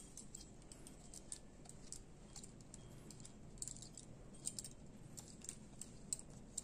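Faint, scattered metal clicks and clinks of a folding hex-key multi-tool being handled at a bicycle's stem folding hinge. The clicks come irregularly, several to a second.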